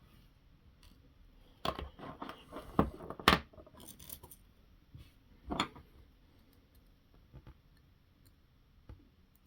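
Small metal screws and parts clicking and clinking as they are handled and set down on a workbench: a cluster of sharp clicks about two to three seconds in, then one more a couple of seconds later.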